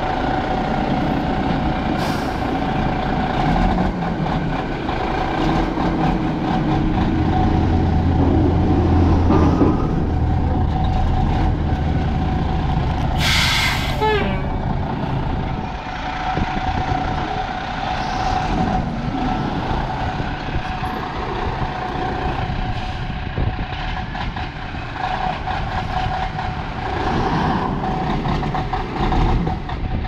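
Cabover semi tractor's diesel engine running, with the engine note rising and heavier for a few seconds about seven seconds in. A sharp hiss of released air, typical of truck air brakes, comes about thirteen seconds in. A thin steady high tone sounds throughout.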